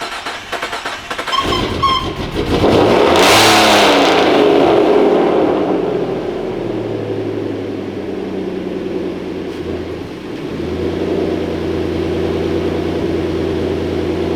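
Turbocharged 3.7-litre V6 of a 2015 Ford Mustang starting on its freshly installed replacement engine: it catches with a sharp rev flare about three seconds in, then settles to a high idle and drops into a steady idle near the end. It runs without rod knock.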